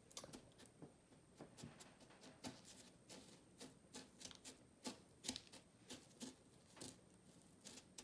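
Faint, irregular crackling and crunching of crushed Flamin' Hot Cheetos crumbs as an egg-washed chicken wing is pressed and rolled in them by hand, a quick scatter of small clicks.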